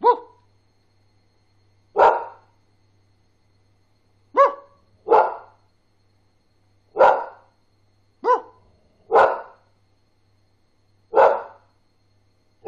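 A brown spaniel barking one bark at a time, about every two seconds, with two quick double barks partway through.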